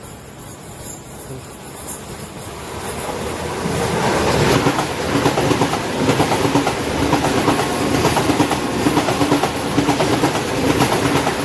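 Passenger train passing fast on the adjacent track: a rush of noise builds as it approaches, then a loud, steady rhythmic clatter of wheels over the rail joints with a steady hum underneath.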